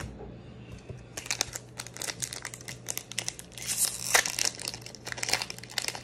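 Foil wrapper of a Pokémon Obsidian Flames booster pack being torn open by hand, crinkling and crackling from about a second in.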